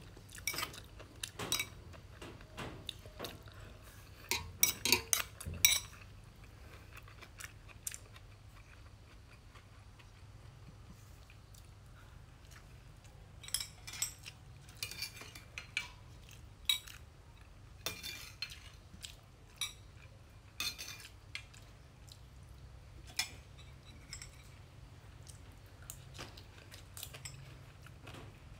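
Metal spoon and chopsticks clinking against a small glass bowl during eating: a quick run of clinks about four to six seconds in, then scattered single clinks, over a faint low hum.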